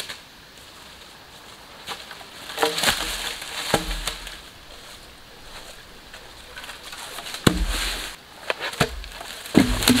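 Wooden poles thudding down onto dry leaf litter, with footsteps crunching through the leaves. There are a few heavy knocks about three to four seconds in, and more from about seven and a half seconds on.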